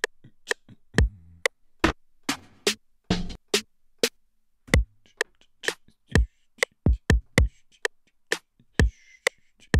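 Programmed drum-machine beat playing back: sharp, dry hits in a syncopated, bouncy pattern, with deep kick thumps every so often among lighter clicky hits.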